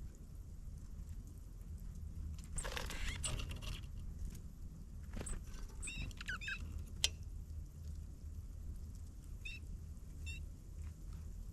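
Small birds giving a few brief chirps, one quick cluster in the middle and two faint single calls near the end, over a steady low rumble. There is a short rustling burst early on and one sharp click just after the chirps.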